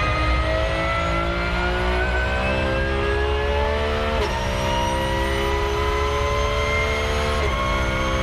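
Porsche 911 GT3 R's 4.0-litre flat-six race engine accelerating hard, heard from inside the cockpit. The pitch climbs steadily, drops with an upshift about four seconds in and again near the end, and climbs again each time.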